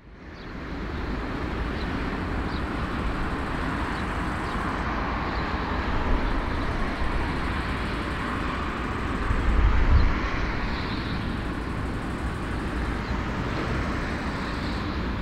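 Airbus A340-313 airliner taxiing, its four CFM56 jet engines giving a steady rumble and hiss that fades in at the start, with a brief louder swell about ten seconds in.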